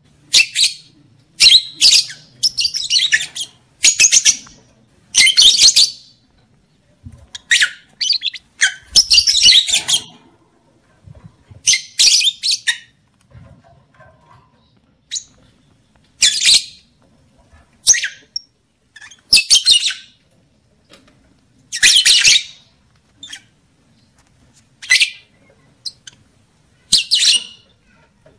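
Lovebird giving short bursts of shrill, high-pitched chirping calls, one every second or two with irregular pauses. These are breeding-lure calls meant to bring other lovebirds into mating condition.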